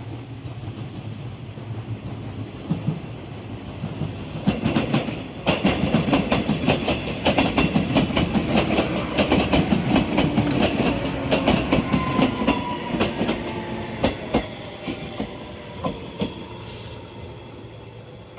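A train passing through a station, its wheels clacking rapidly over rail joints. The sound builds about four seconds in, is loudest through the middle, and eases off over the last few seconds.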